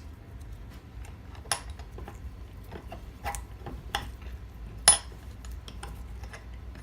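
Scattered light metallic clinks and taps as a small titanium part is handled and turned over on a work surface. The loudest comes about five seconds in and rings briefly.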